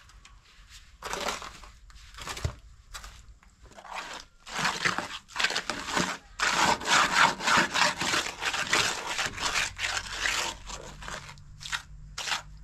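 A run of rough scraping and rubbing strokes, scattered at first, then quick and close together through the middle, thinning out near the end.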